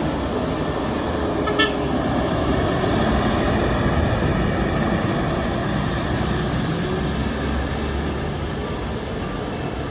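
Bus engine and road noise as a bus drives past, growing a little louder toward the middle and then easing, with one brief horn toot about a second and a half in.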